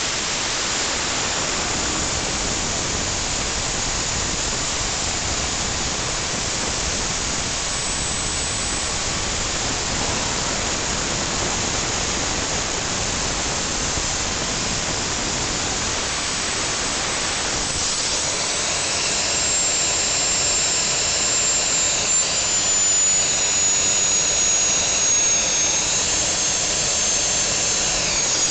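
DIY gas turbine engine running at idle, about 26,000 RPM: a steady rushing hiss of air through the compressor. From about two-thirds of the way through, a high whine joins in and slides slightly down in pitch as it gets a little louder.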